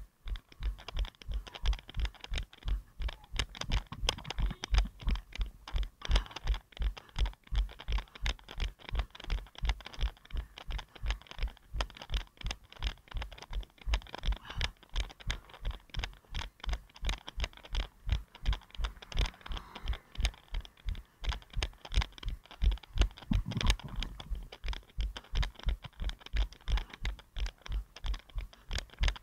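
A runner's footfalls jolting a head-mounted action camera: a regular low thump about three times a second, at running cadence, over a steady hiss.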